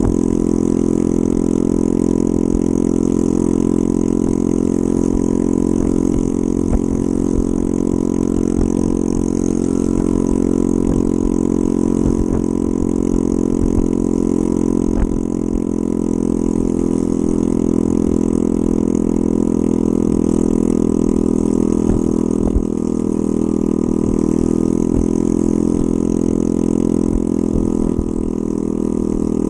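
Honda Ruckus scooter's small single-cylinder four-stroke engine running steadily under way, heard from the handlebars, with brief slight dips about halfway through and near the end.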